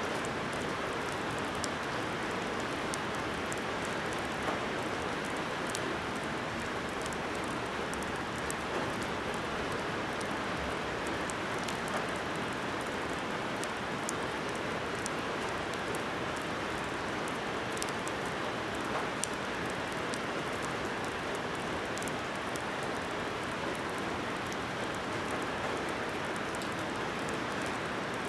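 Heavy rain falling steadily in a dense, even hiss, with scattered sharp ticks of individual drops.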